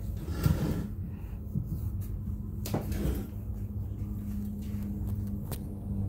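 Kitchen cabinet door knocking shut about half a second in, a second knock near the three-second mark, and a sharp click near the end, over a steady low hum.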